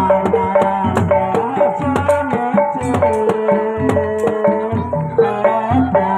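Traditional Javanese music for kuda lumping: hand drums beating busily under pitched instruments playing a melody.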